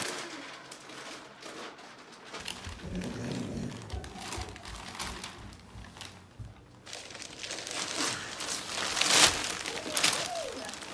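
Glossy gift wrapping paper crinkling and rustling in uneven bursts as it is pressed and wrapped around a person lying on the floor, loudest near the end.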